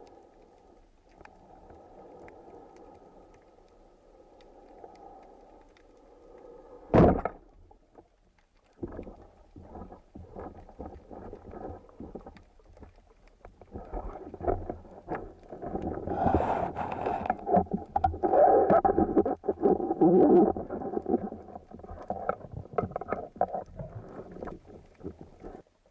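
Muffled water noise with scattered clicks and knocks, and one loud sharp thump about seven seconds in. The noise grows louder and busier in the second half.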